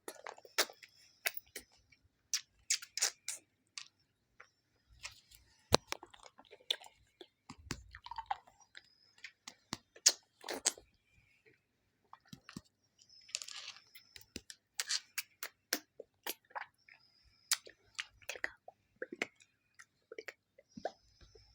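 Close-miked ASMR mouth sounds of a lollipop being sucked and licked: irregular wet clicks and smacks coming in quick clusters with short pauses between.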